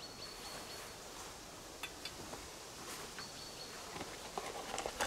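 Quiet forest ambience with a thin, steady high note heard twice, and a few small clicks and rustles from items handled at an open car boot, busiest and loudest near the end.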